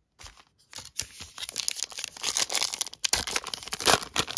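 Trading-card pack wrapper being torn open and crinkled by hand, a dense crackling that starts about a second in and keeps going.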